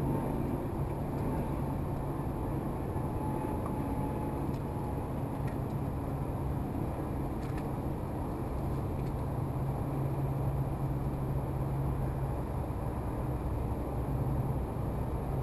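Small boat's motor running steadily, a constant low hum over a haze of outdoor noise.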